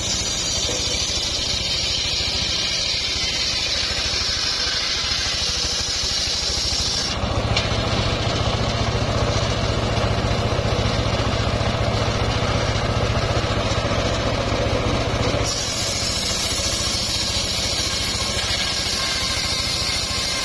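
Engine-driven, home-built circular saw bench ripping trembesi timber into boards: a steady engine drone under the hiss of the big blade cutting through wood. The blade hiss drops back abruptly about seven seconds in and comes back strongly at about fifteen seconds.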